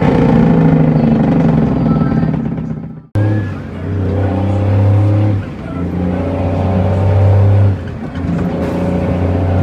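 Cummins N14 diesel engine of an International truck heard from the cab, pulling steadily under load as the truck is driven through the gears, with two brief dips in level in the second half. The sound breaks off abruptly for an instant about three seconds in.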